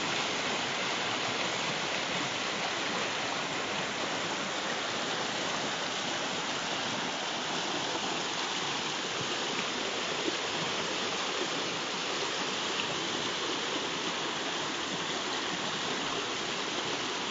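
River water rushing and churning over rocks in a rapid: a steady, unbroken splashing rush.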